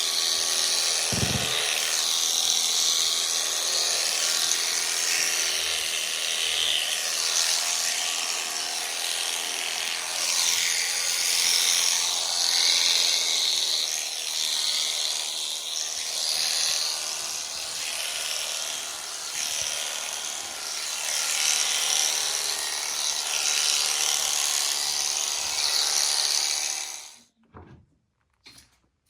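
Electric animal shears running steadily as they cut alpaca fleece, the buzz wavering in strength as the cutters bite; it cuts off suddenly shortly before the end.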